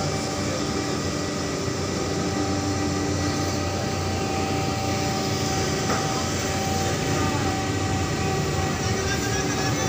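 Ship's cargo crane and deck machinery running with a steady drone and several constant hum tones as the crane lowers a sling of bagged cargo into a lighter's hold.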